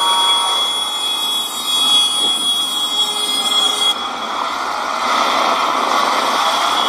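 Large farm tractors driving slowly past, a steady noisy engine and traffic sound with a high continuous tone over it. The sound shifts abruptly about four seconds in.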